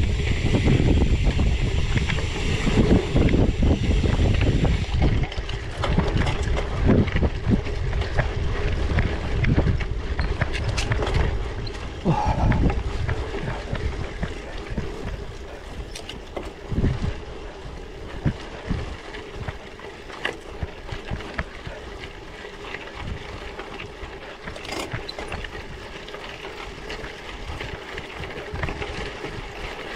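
Bicycle on 700x38c tyres riding over rough off-road ground: tyre rumble and wind noise on the microphone, with frequent clicks and rattles from the bike. Louder over the first dozen seconds, then quieter.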